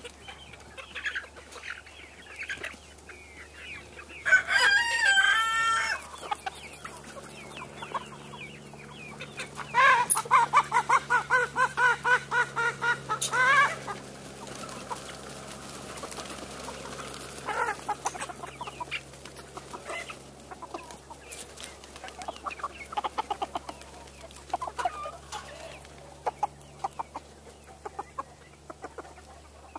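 A flock of chickens clucking, with a rooster crowing once about four seconds in and a loud run of rapid repeated calls from about ten to thirteen seconds in.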